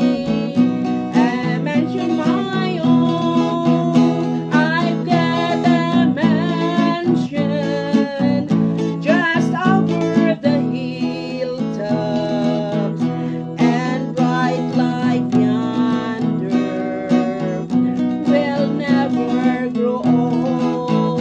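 Music: strummed acoustic guitar with a wavering sung melody over it.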